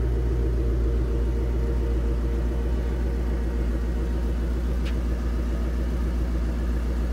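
Parked Ford Mustang GT/CS's engine idling, a steady low rumble.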